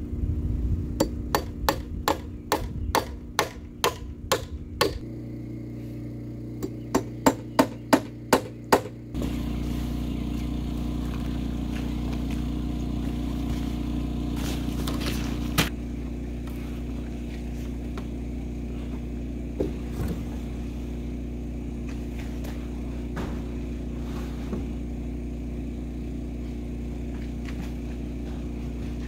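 Hammer blows on a wooden stud frame: about a dozen strikes over the first five seconds, then a quicker run of about seven. After that a steady low hum takes over, with only an occasional knock.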